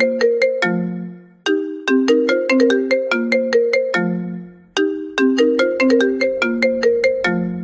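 Phone ringtone melody of short, bell-like struck notes. A quick run of notes ends on a longer low note, and the phrase repeats about every three seconds.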